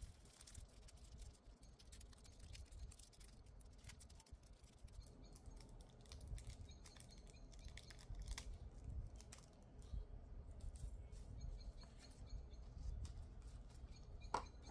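Faint crinkling and scratching of nail transfer foil as gloved fingers rub it onto a false nail tip, with small scattered clicks. There is a sharper click near the end.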